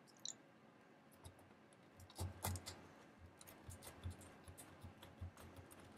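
Faint, scattered small clicks and taps of a screwdriver working a small screw into a plastic model frame among wiring, the loudest a little past two seconds in.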